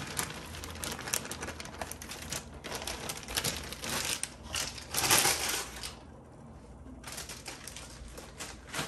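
Plastic bag of frozen diced potatoes crinkling as it is shaken and emptied into a bowl, with a clatter of small clicks from the frozen cubes falling in. The crinkling is loudest about five seconds in and dies away about six seconds in.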